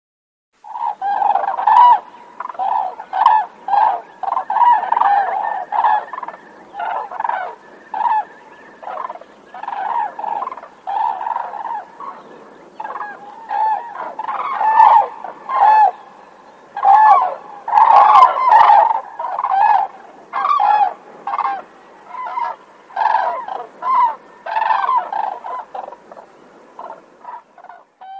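Whooping cranes calling: a long series of loud, short pitched calls in quick succession, some overlapping, beginning about a second in and loudest a little past the middle.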